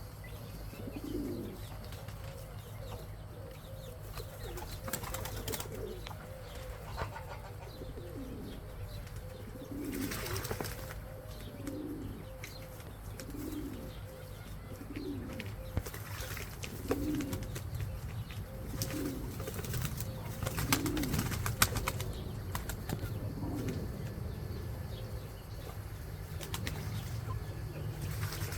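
Pigeons cooing over and over, a low call about every second and a half, with occasional noisy bursts of wing flapping as they bathe.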